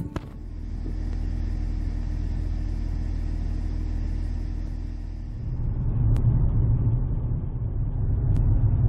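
Car heard from inside the cabin: a steady low engine hum, then, about five and a half seconds in, a louder low rumble of road noise as it drives along.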